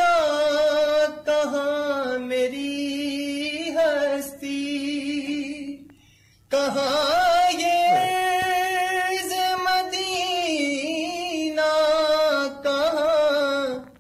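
A young man's voice reciting an Urdu naat, unaccompanied, drawing out long held notes with ornamental turns in the melody. The voice breaks off for a breath about six seconds in, then carries on.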